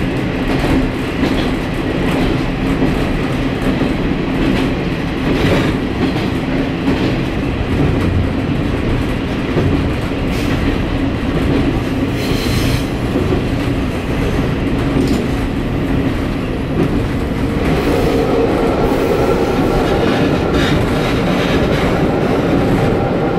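Diesel railcar running along the track, heard from inside the car: a steady engine drone with the wheels clicking over rail joints. A higher note joins about three-quarters of the way through.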